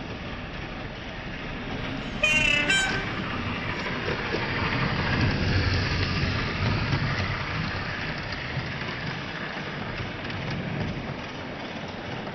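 OO gauge model of a BR class 37 diesel running past with a rake of test coaches: a rumble of the motor and wheels on the track swells as it comes close and then eases off. A short horn sounds in two quick blasts about two seconds in.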